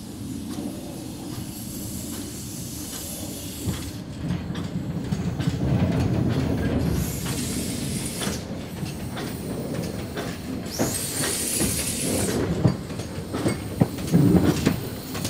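Small Orenstein & Koppel 0-4-0 steam tank locomotive running slowly past, its wheels clicking and clanking over the rail joints and pointwork, with steam hissing. A loud hiss of steam rises about eleven seconds in and lasts a second or so. Louder clanks come near the end as the engine draws close.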